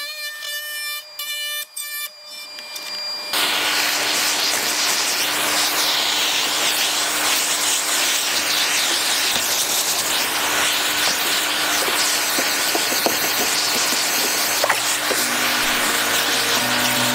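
DeWalt compact router cutting wood, a loud steady rushing noise with a constant motor tone, starting suddenly about three seconds in.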